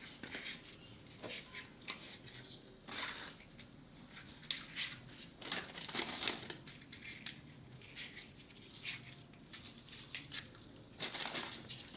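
Crinkling and rustling of material being handled, in irregular bursts, busiest around three and six seconds in and again near the end.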